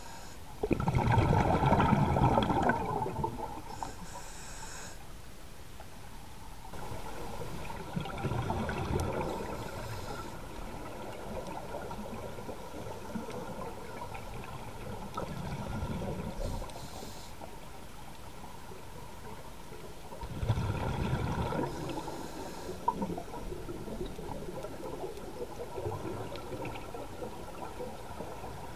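Scuba diver breathing through a regulator underwater: four gurgling rushes of exhaled bubbles, one every six or seven seconds, with a faint hiss of inhalation in between.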